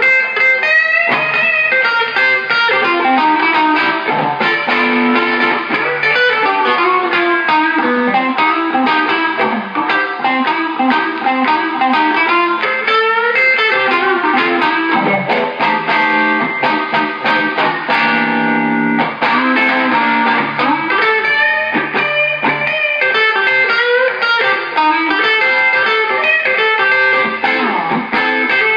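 Electric hollow-body guitar with GFS Dream 90 pickups played through a VHT Ultra 6 tube combo with a WGS Veteran 30 speaker, with reverb and overdrive pedals in the chain. It plays a run of single-note lines and chords, with one chord left ringing for a second or two about two-thirds of the way through.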